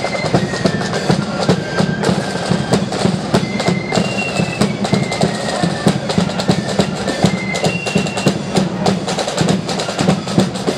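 Marching flute band playing a tune: a melody line on flutes stepping from note to note over steady, rapid side-drum strokes and a bass drum beat.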